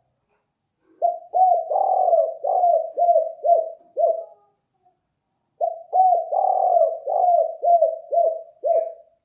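Spotted dove (balam/tekukur) cooing: two phrases of quick, repeated hollow notes, the second starting about a second after the first ends, in the song style that keepers call 'kuk 4'.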